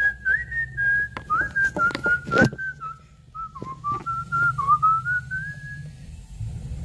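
A person whistling a wandering tune, one clear note at a time, stopping about six seconds in. A few clicks and knocks of handling are heard under it, the loudest about two and a half seconds in.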